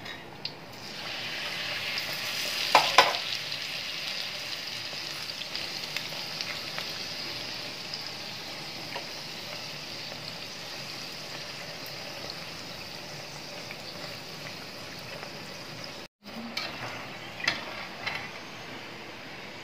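Stuffed kachori deep-frying in hot oil in an iron kadhai on a low flame: a steady sizzle of bubbling oil that swells about a second in as the turned kachori settles back into the oil. The metal slotted spoon clinks and scrapes against the pan about three seconds in, and a few times more near the end.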